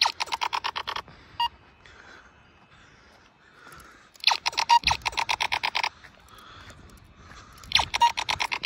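Laser X toy laser-tag blaster firing from its built-in speaker in three rapid electronic bursts of about ten pulses a second, the longest near the middle. A single short beep sounds about a second and a half in.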